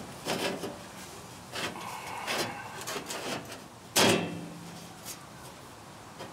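A flat sheet-metal replacement floor pan for a Volkswagen Beetle being set into the floor: a few light knocks and scrapes, then one loud clang about four seconds in that rings on briefly.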